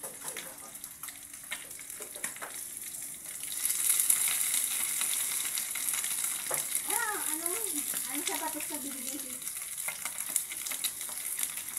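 Smoked fish (tinapa) sizzling as it fries in hot oil in a pan. The sizzling gets louder about three and a half seconds in, as more fish go into the oil.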